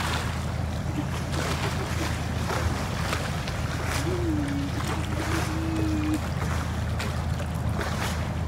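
Steady low hum of a running motor.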